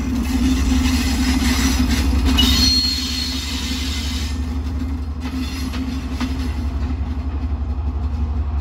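Colas Rail Freight Class 70 diesel-electric locomotive passing close by with its V16 diesel engine throbbing steadily, along with the rumble of its wheels on the rails. A brief high squeal comes about two and a half seconds in. The sound is loudest in the first three seconds and eases a little as the locomotive draws away.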